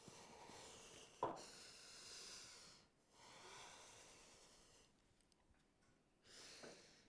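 Quiet, slow breathing close by: three long breaths, with a small click about a second in.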